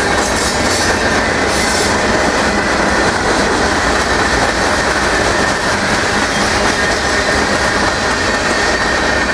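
Freight cars of a passing manifest train rolling by close to the track: the wheels make a steady, loud rumble and rattle on the rails, with a thin, steady high squeal running over it.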